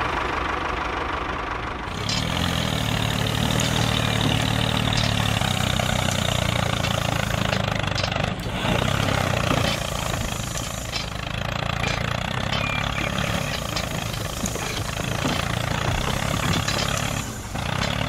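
Tractor engine running steadily, getting louder and heavier about two seconds in and holding there.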